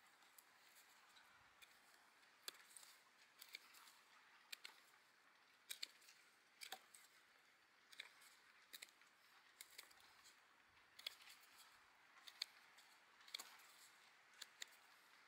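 A small fixed-blade knife with a black G10 handle shaving a wooden stick: faint, crisp cutting scrapes in short strokes at an irregular pace, about one every second.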